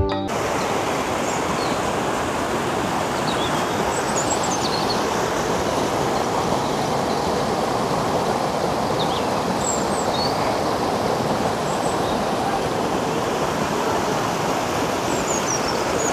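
Mountain stream rushing down a rocky cascade: a steady, even rush of white water over rock. A few brief high chirps sound over it.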